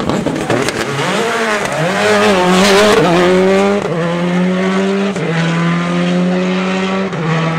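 Rally car engine revving hard as the car powers out of a tight bend, its pitch wavering at first, then climbing steadily through three upshifts, with sharp drops about four, five and seven seconds in.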